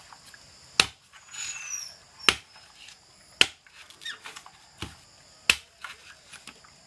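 Bolo knife (machete) blade striking a whole coconut's husk to chop the husk off. Five sharp chops come at uneven gaps of about one to one and a half seconds.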